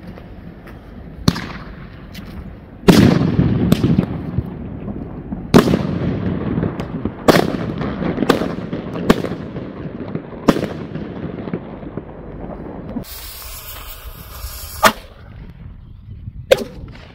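Polish firecrackers (Polenböller) going off one after another: about ten sharp, loud bangs at uneven spacing, the biggest ones trailing off in a short rumble. A stretch of hiss comes in about two-thirds of the way through.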